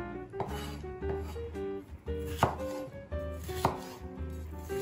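Chef's knife chopping garlic and red bell pepper on a wooden cutting board: a few separate knife strikes on the board, two of them loudest about halfway through, over background music.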